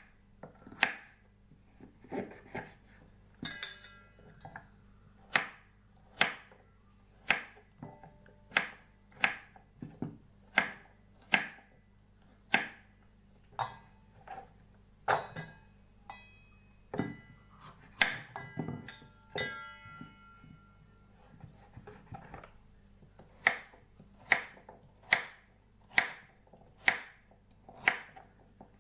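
Kitchen knife chopping butternut squash into cubes on a wooden cutting board: sharp knocks about once a second, with a short pause about two-thirds of the way through. A few of the strokes ring briefly with a metallic tone.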